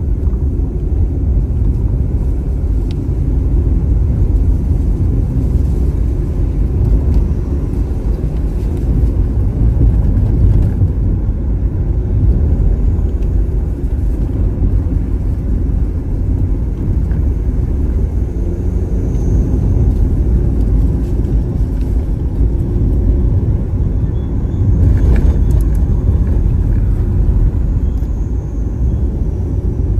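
Steady low rumble of a car being driven on a winding paved road, heard from inside the cabin: engine and tyre noise, swelling slightly about twenty-five seconds in.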